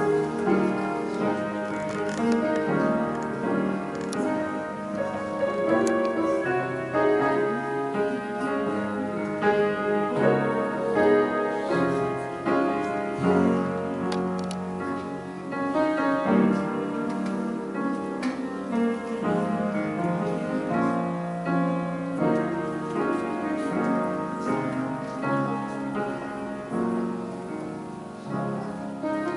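Piano playing music, held chords changing every second or so.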